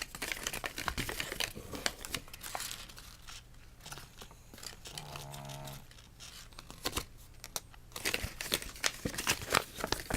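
Toy packaging crinkling and rustling in the hands as a Shopkins set is unpacked, in dense crackles that die down in the middle and pick up again near the end. A brief low hum is heard about halfway through.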